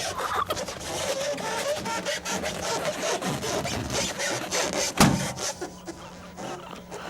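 Rubber balloon squeaking and crackling as it is rubbed and squeezed, then one sharp pop about five seconds in as it bursts.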